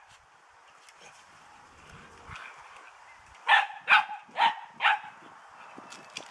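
Puppy barking: four quick, sharp yaps about half a second apart, a little past halfway through.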